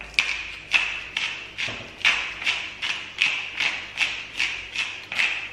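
Wooden grinder mill twisted by hand: about a dozen short grinding rasps at an even pace, two or three a second.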